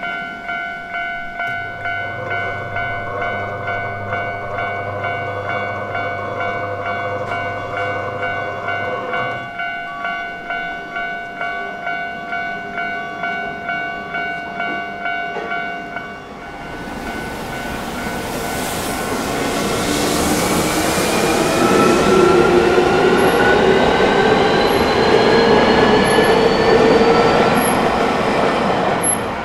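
Japanese level-crossing warning bell ringing in even repeated strokes, stopping about sixteen seconds in. A Keio Inokashira Line electric train then passes, getting louder, its motor whine rising steadily in pitch as it accelerates.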